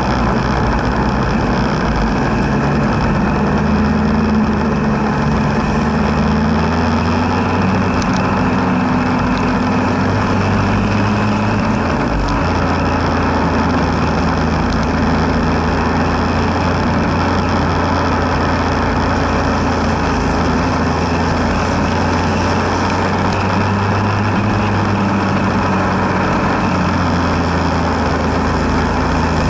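Motorcycle engine running at riding speed over a steady rush of wind. The engine note rises and falls in pitch with the throttle and changes suddenly about twelve seconds in, then holds steadier.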